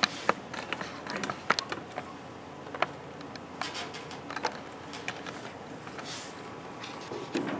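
Pastel stick making light strokes on a pastel board: soft scratching with irregular small ticks and taps.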